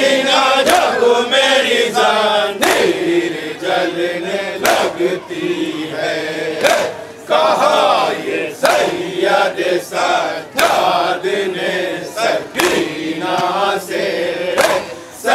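A crowd of men chanting a mourning lament (nauha) together, with a sharp slap of many hands on chests about every two seconds: the beat of matam.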